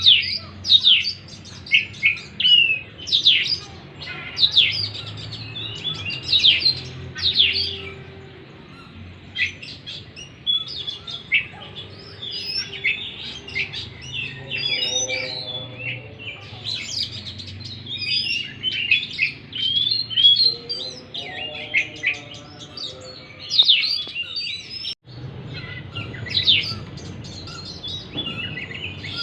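Oriental magpie-robin (kacer) singing a long, varied song of quick sweeping whistles and chirps, with a few lower, buzzier phrases midway. It is a trigger recording (pancingan) played to get a kacer that has gone quiet from stress singing again.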